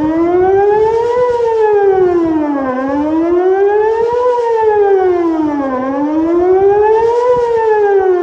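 Whelen WPS-2810 electronic outdoor warning siren sounding a wail, its pitch rising and falling about every three seconds. It is quieter than it should be, which the uploader puts down to some blown speakers.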